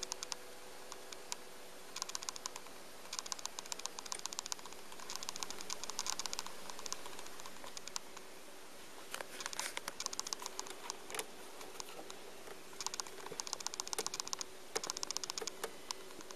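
Runs of rapid, fine clicking, each lasting about half a second to a second and a half, recurring several times over a faint steady hum.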